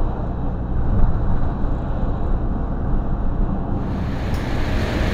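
Steady engine and road noise heard inside a vehicle's cab while driving. Near the end it changes abruptly to a brighter, hissier background.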